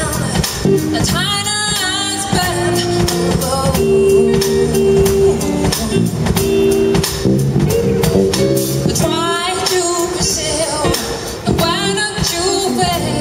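Live band playing an R&B song: a woman singing over electric guitar, electric bass and a drum kit. Her voice comes in phrases, with a stretch of held chords in the middle.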